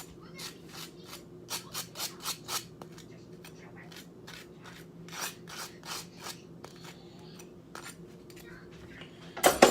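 Table knife scraping butter across crispy toast in quick strokes, about four a second, in two bouts with a pause between them. A sharp knock comes near the end, over a faint steady hum.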